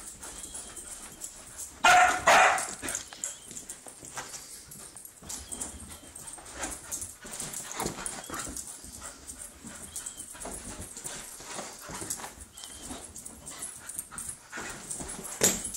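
Husky puppy giving two loud barks about two seconds in, then its scuffling and bumping as it runs laps over couch cushions and carpet, with one more sharp loud sound near the end.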